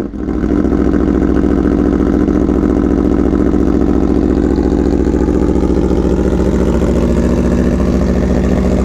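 Aprilia Tuono V4 1100 Factory's V4 engine idling steadily just after a cold start.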